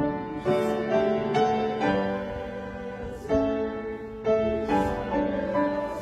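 Piano playing a slow instrumental piece: held chords with a new note or chord struck about every half second to second.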